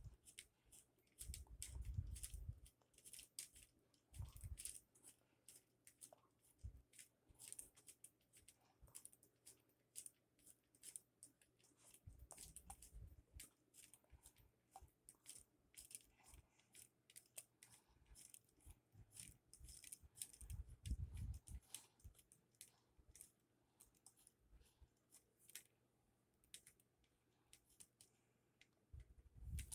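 Faint, irregular plastic clicks and rattles from a Lego Technic mobile crane being handled and its boom worked, with a few soft low thumps.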